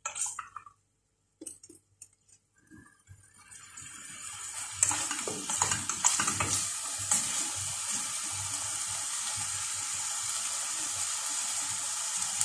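Chicken pieces sizzling in a stainless steel pot: a steady hiss with small crackles that builds over a couple of seconds and then holds. At the start a spoon clinks against the pot a few times.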